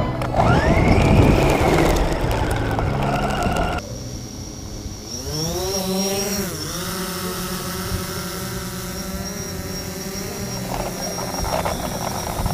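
Music plays for the first few seconds and cuts off abruptly. Then a quadcopter drone's propellers spin up with a rising whine, dip, and settle into a steady hovering hum.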